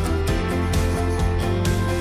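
Background music with drum hits over sustained instrument tones.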